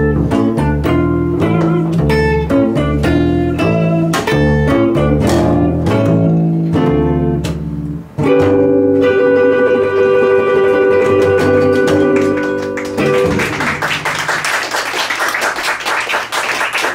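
Electric guitar and upright double bass playing a quick jazz line, then landing on a final chord about eight seconds in that rings for about five seconds. Audience applause follows near the end.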